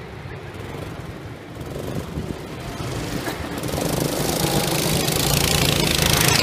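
Several go-kart engines running as a group of karts comes round the track, growing steadily louder and loudest near the end, with a rushing hiss rising over the last few seconds as they pass close.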